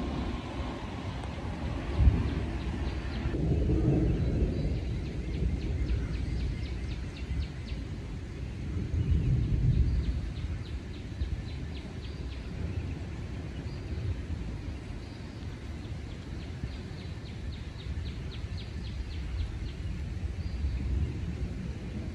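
Thunder rumbling low and rolling, with louder swells about two, four and nine seconds in, while a northern cardinal sings rapid series of repeated whistled notes. A steady hiss cuts off about three seconds in.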